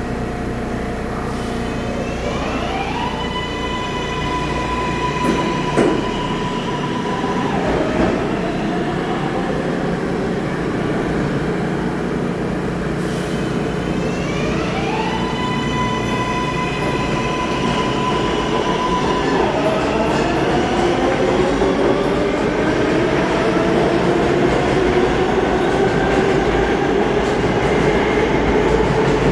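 R143 subway cars' electric propulsion accelerating: the motor whine climbs in steps to a steady high note, holds for a few seconds and then drops away. This happens twice. Toward the end a rising motor whine grows louder, over a constant rumble of rail and wheel noise.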